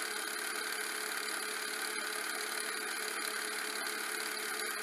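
Steady mechanical hum with a hiss over it and a few faint clicks.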